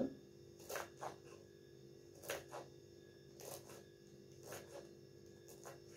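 Kitchen knife chopping wild asparagus stalks on a cutting board: faint separate cuts, about ten of them, mostly in quick pairs roughly once a second.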